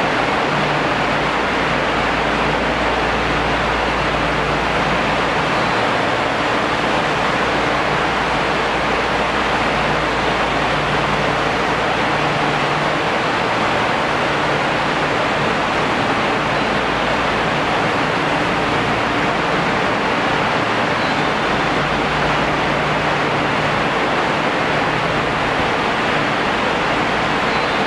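A loud, steady rushing noise that never changes, with a faint low hum coming and going beneath it.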